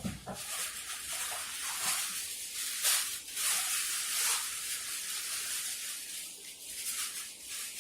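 Crinkly paper or plastic wrapping rustling and crackling irregularly as a garment is handled and unpacked.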